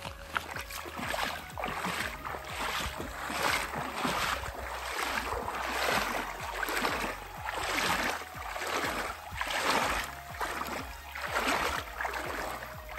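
Someone wading through a river on foot: water swishing and splashing with each stride, in a steady rhythm of a little under one step a second.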